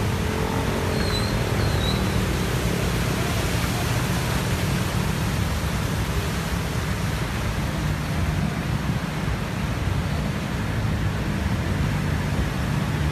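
Traffic driving through a flooded road: a steady rush of tyres pushing through deep water, with engines rumbling underneath.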